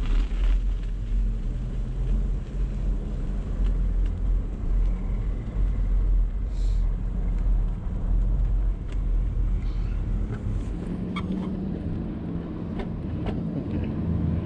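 Bicycle riding over snowy, icy pavement: a steady low rumble of wind on the microphone and tyre noise, with a few light clicks and knocks in the second half.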